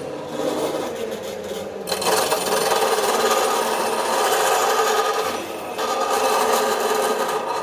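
Bench grinder running with a metal piece pressed against the spinning abrasive wheel, a steady grinding rasp that gets louder about two seconds in as the metal is pushed harder onto the wheel, eases briefly, then picks up again.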